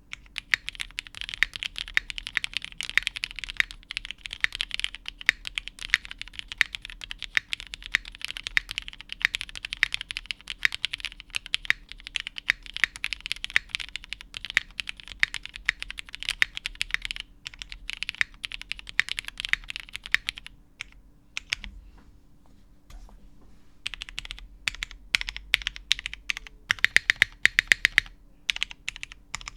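Mechanical keyboard typing on a plateless-mounted DK1 60% board with vintage MX Black linear switches and GMK keycaps. The typing is fast and continuous, thins to scattered single key presses about two-thirds of the way through, then picks up again with a quick run of loud strokes near the end.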